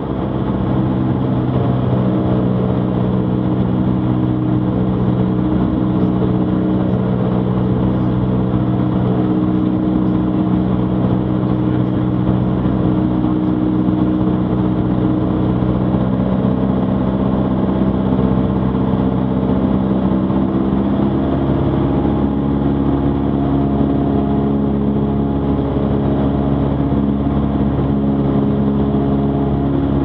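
Cessna 152's four-cylinder Lycoming engine and propeller droning steadily, heard from inside the cockpit on landing approach. The engine note changes slightly about two-thirds of the way through.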